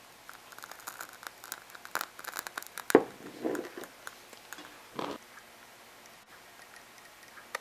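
A candle being handled and lit: a run of small clicks and rustles, a sharp strike about three seconds in with a brief hiss after it, and another short scrape about five seconds in.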